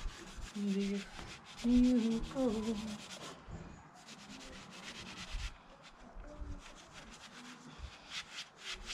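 Green scouring pad scrubbed rapidly back and forth on a dirt bike's WD-40-soaked exhaust header pipe to shift surface rust, in runs of quick strokes with short pauses. A man hums briefly, about one and two seconds in.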